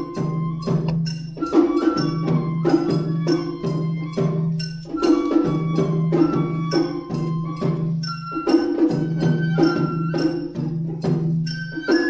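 Japanese matsuri-bayashi festival music: a shinobue bamboo flute plays a held, stepping melody over quick, steady strokes of taiko drums.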